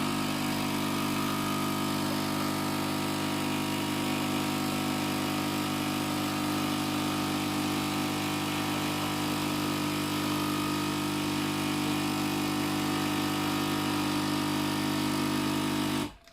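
DeLonghi EN670 Nespresso machine's vibratory pump humming steadily as it pushes water through a capsule during extraction, then cutting off suddenly at the end of the brew cycle.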